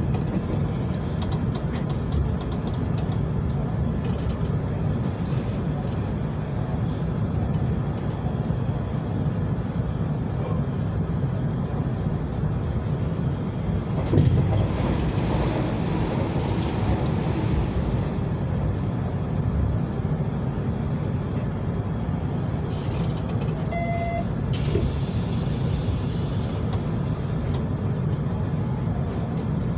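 Hanshin 9300 series electric train running along the line, a steady low rumble of wheels on rail, with a single knock about halfway through and a brief tone near the end.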